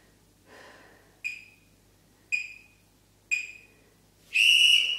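Workout interval timer counting down: three short beeps about a second apart, then one longer, louder beep that marks the end of the timed hold.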